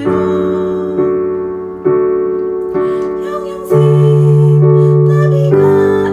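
Piano playing slow block chords with no voice, a new chord struck about every second and left to ring and fade, with one longer held chord in the middle.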